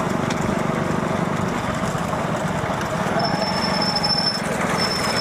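Motorcycle engines running steadily alongside a racing bullock cart, mixed with cart and crowd noise. A thin high steady tone sounds twice near the end.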